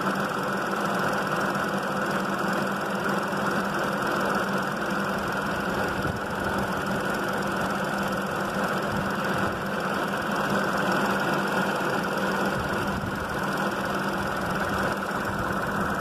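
Volkswagen Polo engine idling steadily, heard up close under the open bonnet, with the air-conditioning compressor engaged and running.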